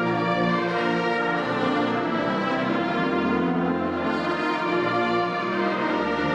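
Instrumental music with full, sustained chords, the held notes shifting every second or so.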